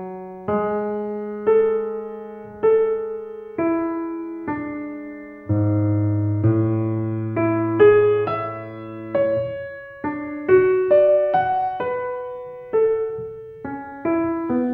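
Slow solo piano music: single notes struck one after another and left to fade, with a low note sustained underneath for a few seconds midway.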